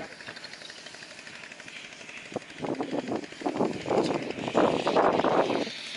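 Rapid, irregular rattling and knocking from a hooked gurnard being reeled in to the surface. It starts about two and a half seconds in and grows louder toward the end.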